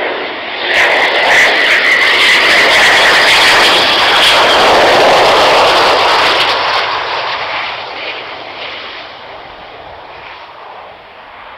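Eurofighter Typhoon's twin EJ200 jet engines on a landing pass: a loud rush with a high whine that swells about a second in as the jet comes low over the runway, then fades away as it rolls out.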